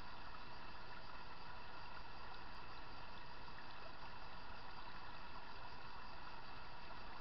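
Small stream running over stones, a steady rushing water noise.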